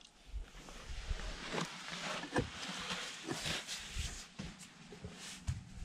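Scuffing and rustling of a man squeezing through a narrow stone passage: clothing brushing and scraping against the rock walls and bare feet shuffling on stone, with irregular soft knocks. The sound is busiest in the middle.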